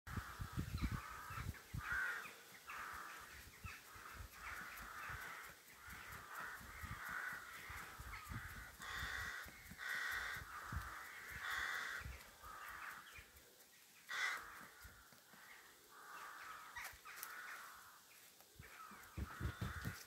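A flock of crows cawing again and again, many calls overlapping, as they gather to roost.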